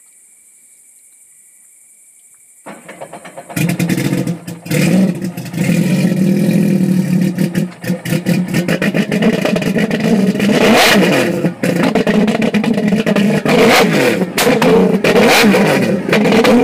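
Sea-Doo RXT-X's supercharged three-cylinder 4-TEC engine, running through a free-flow (Riva Stage 3) exhaust. After a few seconds of faint hiss it comes in loud and is revved up and down repeatedly, with many sharp pops and crackles from the open exhaust as it throws flames.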